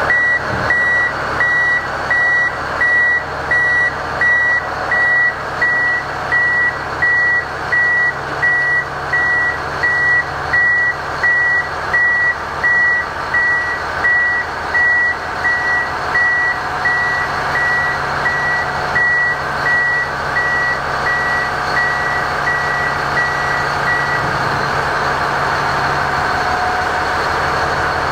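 Reverse alarm of a Volvo R100E rigid dump truck beeping, a single high tone about every 0.7 s, over the truck's diesel engine running steadily. The beeps grow fainter and stop a few seconds before the end, while the engine keeps running.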